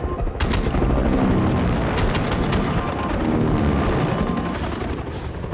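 About five handgun shots, one a bit under half a second in and a quick run of four around two seconds in, over a continuous low rumble and a music score in a film action sound mix.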